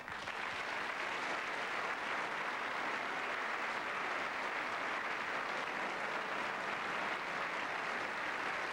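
Theatre audience applauding steadily, a dense wash of many hands clapping that swells up as a speech ends and holds level.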